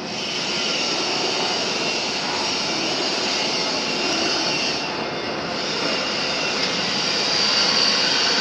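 Steady, loud machinery noise in a welding shop: an even hiss strongest in the high range over a lower hum, with no distinct strokes or breaks.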